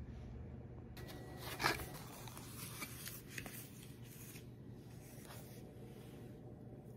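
Soft handling noises of a fork and a paper plate holding a slice of cake, a few light clicks and rustles with a louder one about a second and a half in.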